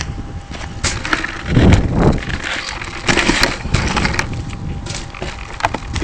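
Wind buffeting the microphone of the onboard camera on a crashed RC Super Cub, with irregular knocks, scrapes and crackles as the foam plane is handled and turned over.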